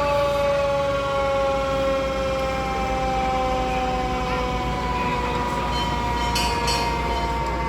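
Fire truck siren sounding, its pitch slowly falling as it winds down. A short hiss comes twice about six and a half seconds in.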